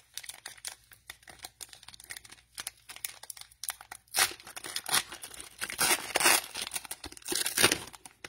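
Cellophane wrapper of a trading card cello pack being torn open and crinkled: a run of fine crackles with several louder rips in the second half.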